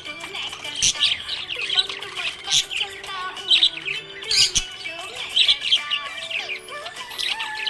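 Budgies chirping and twittering in quick, overlapping calls throughout.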